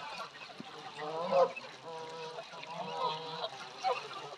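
Canada geese honking in a feeding flock: a run of overlapping calls, the loudest about a second and a half in.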